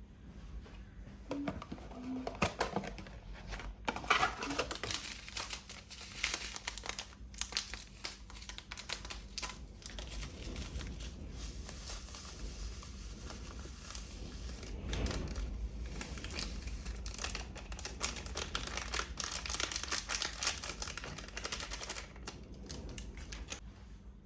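Packaging being crinkled, rustled and torn open by hand, with irregular light clicks and knocks.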